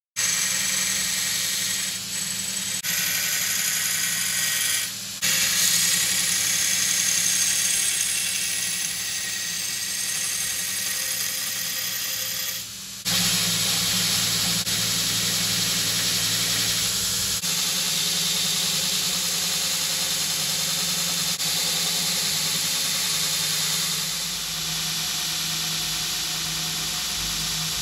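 Belt grinder running with its abrasive belt grinding a forged steel knife blade made from a scrap bearing: a steady motor hum under a loud hiss of grinding. The sound changes abruptly a few times.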